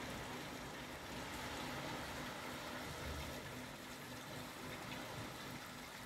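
Calm sea washing gently onto a sandy beach: a steady, even hiss of small surf, with a faint steady hum underneath.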